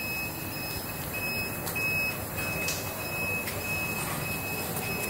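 Roti-making machine's alarm buzzer beeping a high single tone about twice a second, over the machine's running noise.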